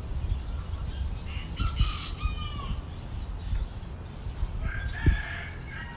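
Chickens calling, with a rooster crowing: a short call about two seconds in and a longer, drawn-out crow starting near five seconds, over a steady low rumble. A single thump sounds about five seconds in.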